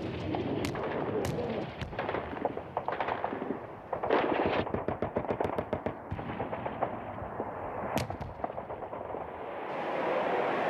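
Gunfire: single sharp shots and rapid bursts of fire, densest in the first half. Near the end a steady rushing noise grows louder.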